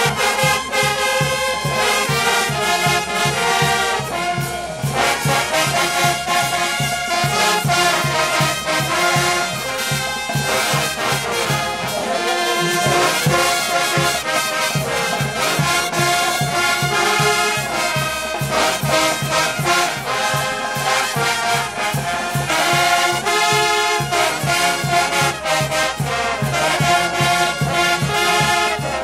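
A brass band playing a tune: trumpets, baritone horns and a sousaphone over a steady drum beat from a drum kit and bass drum.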